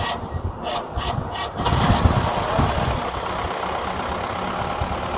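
Motor vehicle engine running, with a louder rush of engine noise setting in about two seconds in and holding steady.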